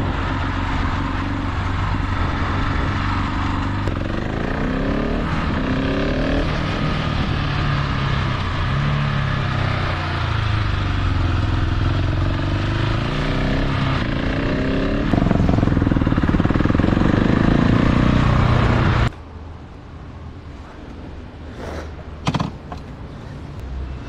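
KTM 690 SMC R's single-cylinder engine through a full LeoVince exhaust, under way on the road: its pitch rises and falls with the throttle and gear changes, louder for a few seconds toward the end. About five seconds before the end it cuts off suddenly to a much quieter background with a few short clicks.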